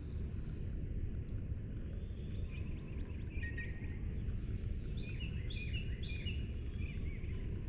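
Outdoor ambience: a steady low rumble with birds singing. There is a short burst of bird song about three seconds in, and two more phrases between about five and six seconds in.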